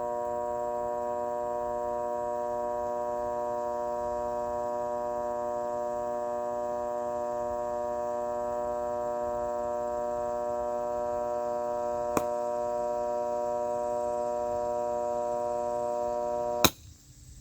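A steady electronic drone of several held tones, unchanging, with a short click about twelve seconds in. It cuts off abruptly with a louder click near the end.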